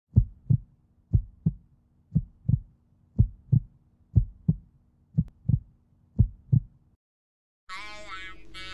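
Heartbeat sound effect: seven double thumps in a lub-dub pattern, about one a second. After a short silence, music starts near the end.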